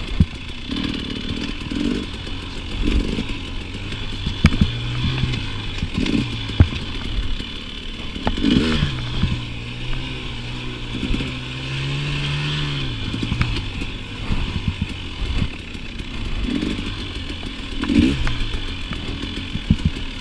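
KTM 300 two-stroke dirt bike engine revving up and down, the note held fairly steady for a few seconds in the middle, with scattered knocks and rattles from the bike.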